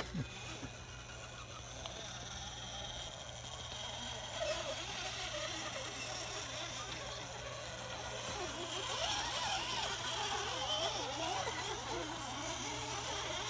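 Electric motor and geared drivetrain of an RC rock crawler whining steadily as it inches up granite boulders, growing gradually louder. Faint voices talk in the background.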